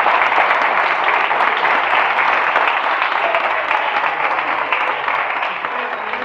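A roomful of people applauding with steady clapping, which slowly eases off toward the end.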